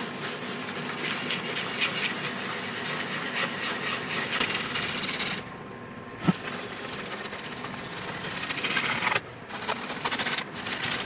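Hand-held sanding pad scratching back and forth across a guitar body's polyurethane clear coat, rasping as it passes over the masking tape around the taped-off cavity. The scratching stops briefly about halfway through and again near the end.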